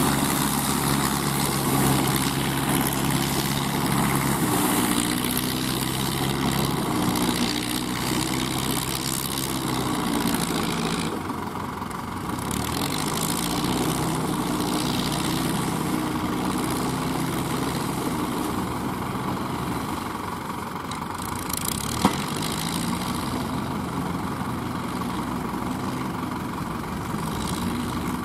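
Kubota ZL3001 tractor's diesel engine running steadily while it drives a straw baler, its pitch dipping and rising a few times as the load changes. One sharp click sounds late on.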